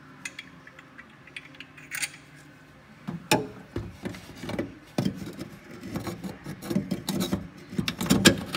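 Metal clinking and rattling of hand tools and bolts as a steel bracket is fastened in the engine bay: a few light clicks at first, then about three seconds in, busier irregular clattering and knocks.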